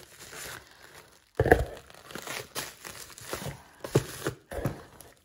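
Plastic bubble wrap crinkling and rustling as a hand rummages among bottles and boxes in a cardboard shipping box, with the loudest crunch about a second and a half in and another a few seconds later.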